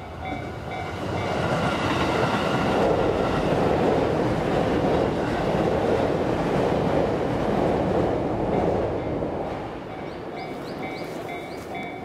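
An electric train passes over a level crossing with a steady rolling rumble that builds about a second in and dies away near the end. The crossing's warning bell rings in repeated pulses at the start, is drowned out by the train, and is heard again near the end.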